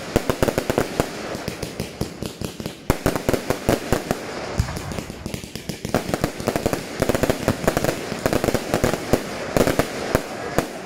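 Fireworks going off in near-continuous rapid crackling and popping, with louder bangs of aerial shells bursting scattered throughout.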